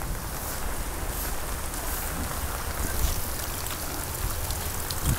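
Rain falling steadily: an even hiss with a few scattered drop taps, over a low rumble.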